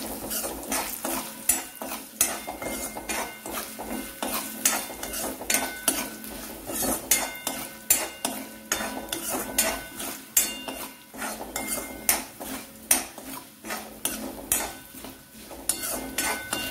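A metal spatula scraping and knocking repeatedly against a metal kadai as coconut pieces and curry leaves are stirred while they roast in oil, with a light sizzle of the frying underneath.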